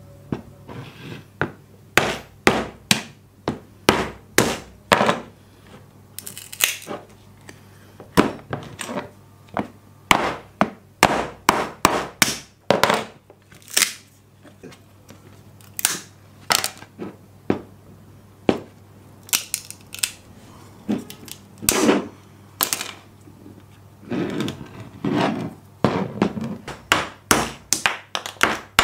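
Irregular series of sharp knocks and clicks, about one or two a second with short pauses, as an axe head and a cast epoxy handle are handled and knocked against a workbench.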